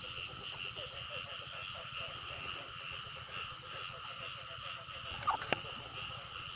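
Night chorus of rice-field frogs and insects calling steadily without pause. About five seconds in come a couple of sharp clicks from the plastic lid of the frog catcher's bucket.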